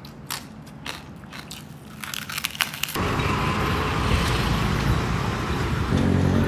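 Crisp, crackling bites of deep-fried pork belly (lechon kawali) being chewed, then about three seconds in a sudden switch to the loud, steady rumble of riding in a small open-sided vehicle, with a steady hum joining near the end.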